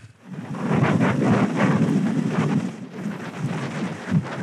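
Wind buffeting the microphone: a loud, rough rumbling rush that swells and eases in gusts, with a brief dip about three seconds in.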